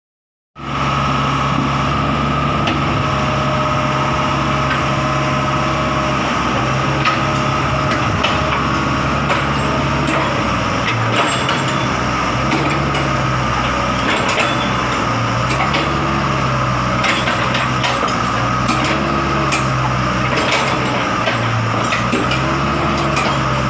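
Komatsu PC75 excavator's diesel engine running steadily, with a steady high whine over it; the engine note dips briefly and recovers several times. Scattered sharp metallic clicks and knocks come through.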